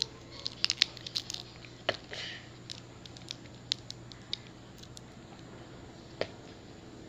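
Crinkling and crackling of a candy wrapper being handled and picked open: a quick run of sharp crackles in the first couple of seconds, then scattered clicks, with one last one near the end.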